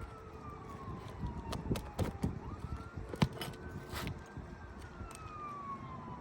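A siren wailing, its pitch slowly falling, rising and falling again. Over it come a few sharp metal knocks, the loudest about three seconds in, from hammering on a roofing snake to pull roofing nails out from under an asphalt shingle.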